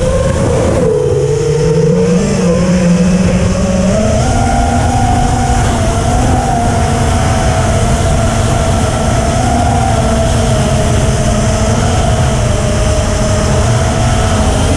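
FPV quadcopter's four EMAX RSII 2206 2700KV brushless motors and propellers whining in flight over a rush of wind. The pitch dips about a second in, climbs around four seconds in, and then holds steady.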